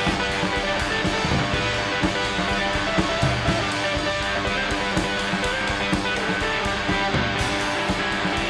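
Rock music with strummed electric guitar and a drum kit keeping a steady beat.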